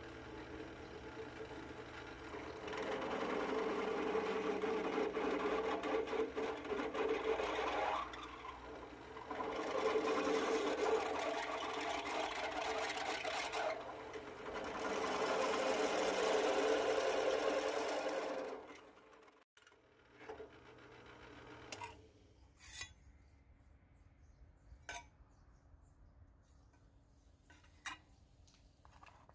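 Namhyun Tooling 1 HP belt-driven benchtop drill press running while a step drill bit cuts a hole in steel plate, in three feed passes of four to five seconds each. The cutting stops about two-thirds through, and a few light clicks and knocks follow.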